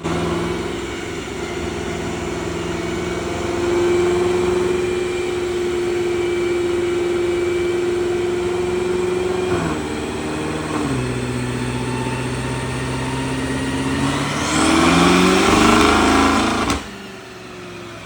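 BMW M5 Competition's twin-turbo V8 running hard through a pull: the pitch climbs slowly, steps down twice about ten seconds in, then rises louder and rougher near the end before cutting off sharply. It doesn't sound right, and the roughness is a misfire on cylinder 7.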